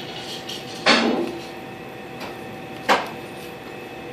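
Two short, sharp knocks about two seconds apart, the first with a brief ringing tail, over a steady electrical hum.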